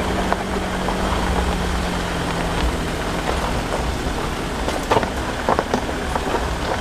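Safari vehicle's engine idling under a steady noisy hiss, with a few short sharp cracks about five seconds in.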